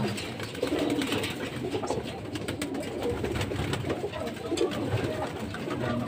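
Several domestic pigeons cooing at once, short overlapping calls.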